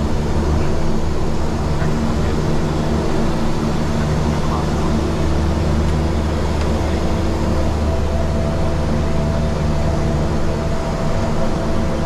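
Garrett TPE331 turboprop engines of a BAe Jetstream 32 running steadily, heard inside the cockpit as a loud, even low hum with several steady tones over it. A higher steady tone grows stronger about two-thirds of the way through.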